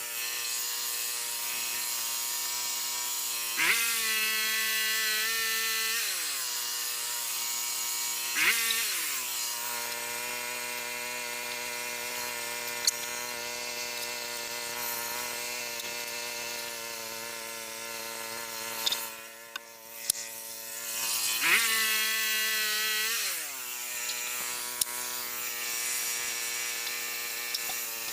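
Portable band sawmill's gas engine running steadily, its pitch jumping up and then sliding back down three times.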